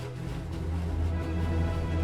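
Background music from the cartoon's soundtrack, with steady, sustained low notes.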